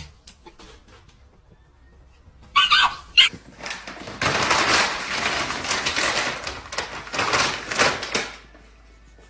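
Plastic bag crinkling and rustling as a bulldog puppy tangles itself in it and drags it across the floor, from about four seconds in until just past eight. Before that, a little under three seconds in, come a few short, loud, pitched calls.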